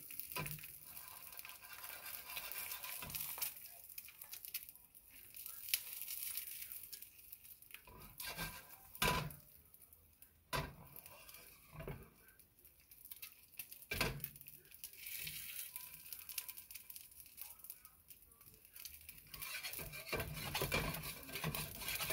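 An egg sizzles in a layered carbon steel, aluminum and stainless pan while the pan is tilted and shaken on the stove grate to test whether the egg releases. Metal scrapes and a few sharp clanks of pan on grate sound over the sizzle.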